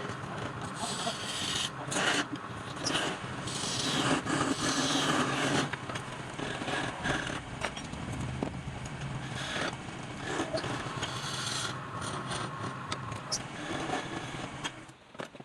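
Irregular scraping and sharp knocks of work on wood, over a steady low hum.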